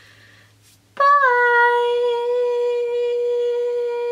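A woman's voice holding one long, steady high sung note, starting about a second in with a short slide down onto the pitch.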